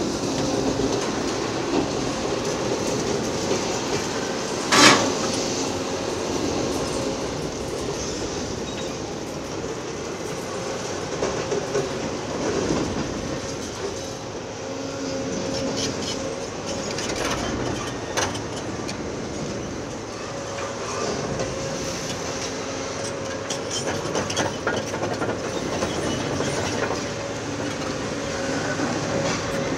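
Heavy demolition machinery working: a large hydraulic excavator's engine and hydraulics running steadily with a held whine. A sharp loud crack about five seconds in, then scattered knocks and clatter of breaking concrete.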